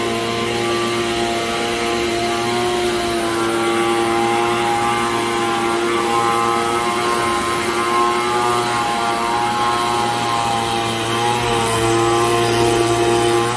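Air blower running steadily: a continuous fan drone with a strong low hum and a whine of several steady tones, the pitch shifting slightly about eleven seconds in.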